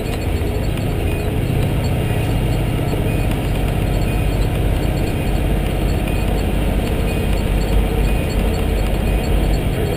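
A 2010 Pierce Velocity fire engine's 470 hp Detroit Series 60 straight-six diesel running steadily under way, heard from inside the cab. The engine's low hum sits under a rough, rattly rumble of the truck rolling over a gravel road.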